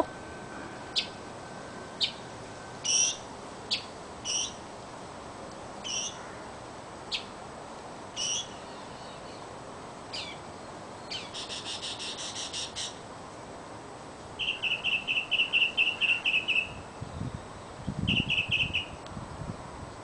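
A small songbird calling from a treetop. It gives sharp single notes about once a second, then a quick rattle of about ten notes, then an even trill of about a dozen notes and a shorter trill near the end.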